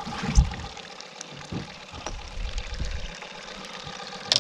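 Bass boat's live-well pump running: water trickles and pours steadily over a faint steady hum. A dull thump comes about half a second in and a sharp knock near the end.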